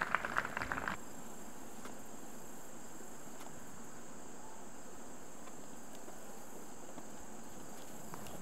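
Insects droning in a steady, high, continuous buzz.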